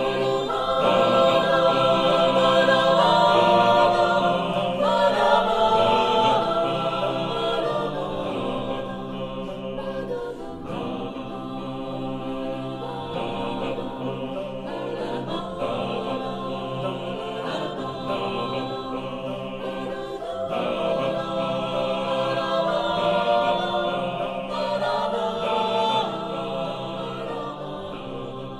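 Mixed choir singing a cappella in sustained chords, in phrases that swell and ease every few seconds, loudest near the start.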